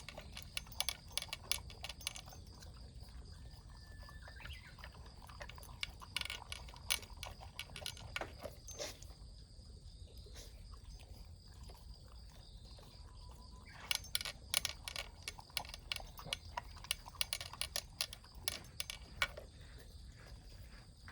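A pet eating its breakfast: runs of quick small crunching clicks in bursts, with short pauses between them.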